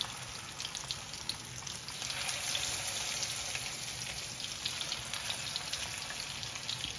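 Marinated chicken pieces sizzling and crackling in hot oil in a frying pan, getting louder about two seconds in.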